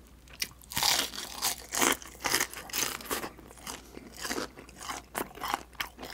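Biting into crispy deep-fried chicken skin and chewing it: a big crunchy bite about a second in, then a run of irregular crunches as it is chewed.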